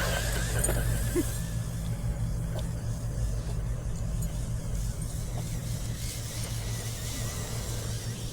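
A steady low mechanical hum, like an engine running, that holds level throughout, with a faint high whine in the first few seconds.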